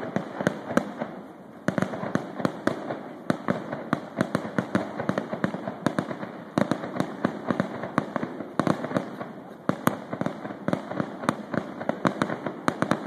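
Fireworks going off in quick, irregular succession: many sharp bangs and cracks with only brief lulls, from street-launched fireworks bursting low overhead.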